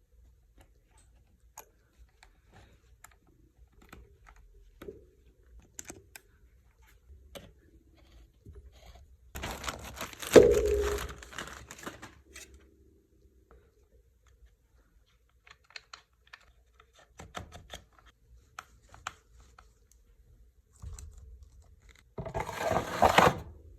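Hands working on a Stihl chainsaw's chain tensioner: scattered light clicks and knocks of small parts, with two louder rasping, scraping noises of a second or two each, one near the middle and one near the end.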